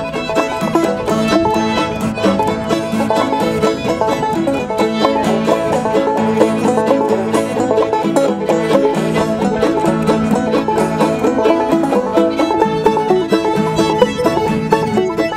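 Bluegrass-style string-band music with quick plucked banjo notes and fiddle, playing steadily.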